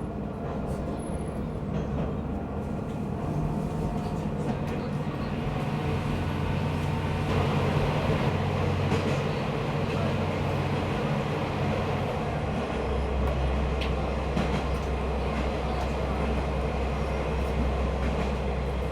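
Diesel railcar running along the line, heard from on board: a steady engine and rail rumble whose low engine note shifts a few times as the power changes, swelling louder midway.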